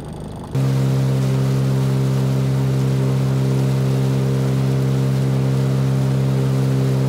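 Motorboat engine running at a steady speed, with water rushing in the boat's wake. It cuts in suddenly about half a second in.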